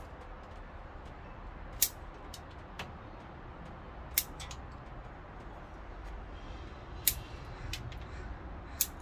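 Bonsai shears snipping through thin stems: four sharp snips a few seconds apart, with a few fainter clicks between them.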